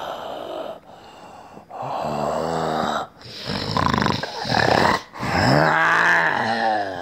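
A man's deep, drawn-out growls and groans, four long calls with short breaks between them, the last two sliding up and then down in pitch.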